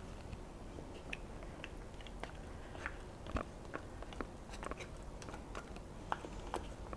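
Silicone spatula scraping applesauce out of a plastic cup and dropping it into thick cake batter: scattered soft, irregular clicks and wet scrapes.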